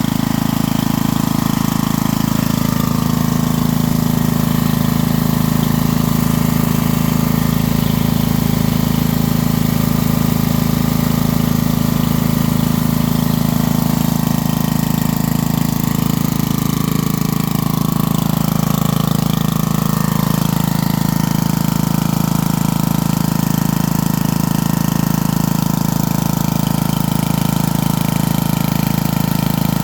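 Coleman Powermate 4000-watt portable generator's 8 hp engine running steadily at a constant speed.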